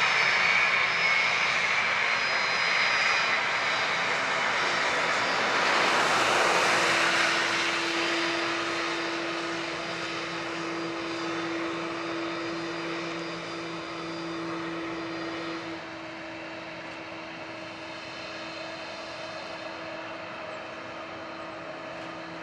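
Jet engines of a Boeing 767-300 freighter whining as the aircraft rolls past close by, loudest about six seconds in, then fading to a steady whine.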